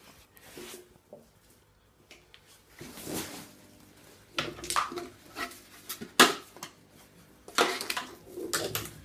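Red plastic swing seat being handled and clipped onto an indoor rope swing: scattered rustles and knocks, with a sharp click about six seconds in.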